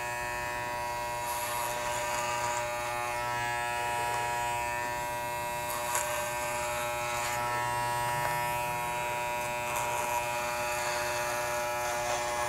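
Corded electric hair clippers running with a steady buzz while they cut long mannequin hair held on a comb. Short rasping moments come through as the blades bite into the hair.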